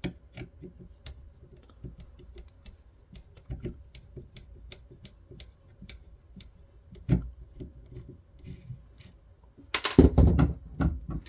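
Irregular small clicks, taps and scrapes of hand tools and parts being handled while a subwoofer cabinet is taken apart, with a louder cluster of knocks and clatter about ten seconds in.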